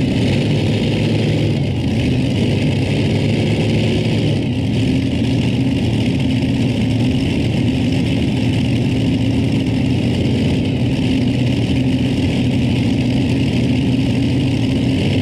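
Light modified pulling tractor's engine running loud and steady at a constant pitch, with no rise or fall in revs.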